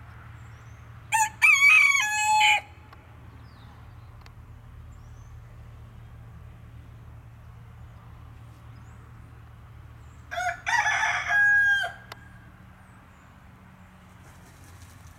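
Rooster crowing twice, each crow about a second and a half long, the second coming some nine seconds after the first.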